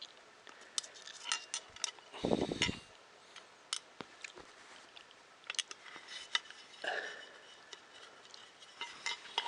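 Small metal screws and printer parts being handled, with scattered light clicks and clinks, and a louder handling noise about two seconds in.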